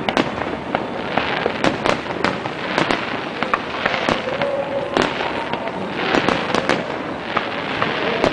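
Aerial fireworks display going off: sharp bangs of bursting shells in quick succession, several a second, over a continuous crackling hiss.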